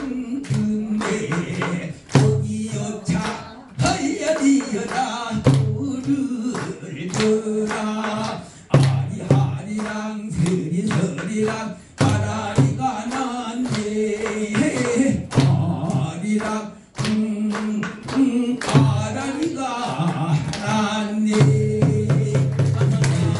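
A man singing a Korean folk song in pansori style, accompanied by a buk barrel drum struck in rhythm, with listeners clapping along.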